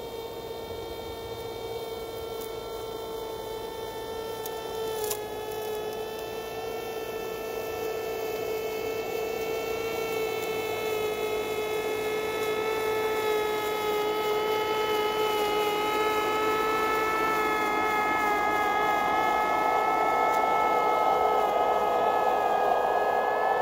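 Electric motor of a G-scale model rotary snow blower, pushed by a model diesel railcar, whining steadily at one pitch as it blows snow off the track. It gets louder as it approaches, with a growing rush of thrown snow near the end and a single click about five seconds in.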